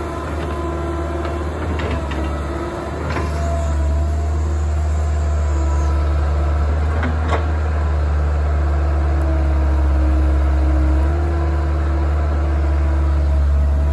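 Kobelco tracked excavator's diesel engine running steadily under load while digging, with a higher whine that shifts in pitch as the boom and bucket move. A few sharp knocks stand out, about two, three and seven seconds in.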